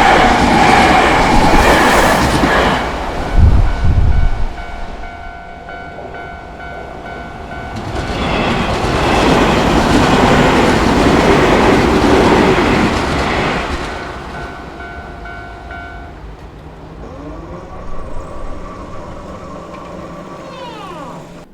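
Keio Inokashira Line electric trains crossing the level crossing: the first train's pass ends about four seconds in with a few heavy low thumps, and a second train rushes through for about six seconds. Between and under them the crossing's electronic warning bell rings in steady pulses, stopping about sixteen seconds in.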